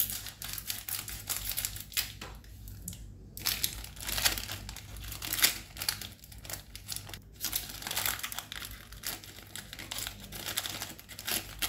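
Plastic wrapper of a Britannia Bourbon biscuit pack crinkling as it is snipped open at one end with scissors and then pulled apart by hand. The crackling comes irregularly, with several louder crinkles along the way.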